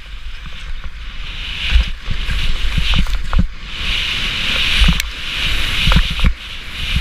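Skis running down a steep snow slope: the skis hiss and scrape over the snow in surges, swelling with each turn, over a low wind rumble on the camera's microphone, with a few short thumps.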